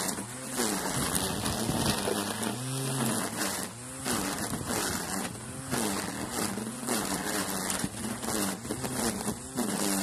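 Battery-powered string trimmer (whipper snipper) cutting long grass, its buzzing motor dipping and rising in pitch over and over as the line meets the grass.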